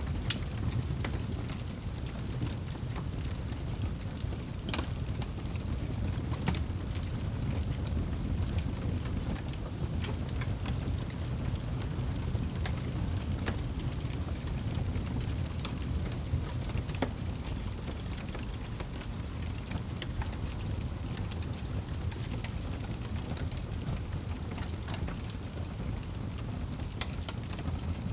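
Wood fire burning in a fireplace: a steady low rumble from the flames, with irregular sharp crackles and pops from the logs.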